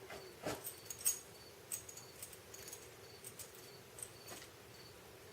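A dog sneezing and snorting in a few short bursts. The strongest comes about a second in, followed by smaller clicks and snuffles.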